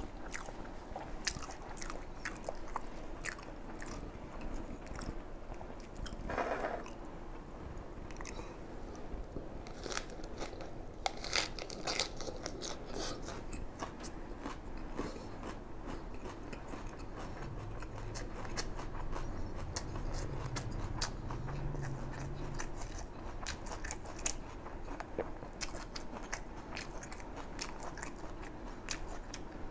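Close-miked chewing of a mouthful of fried rice: wet mouth clicks and soft crunches, with a low hum for a few seconds just past the middle.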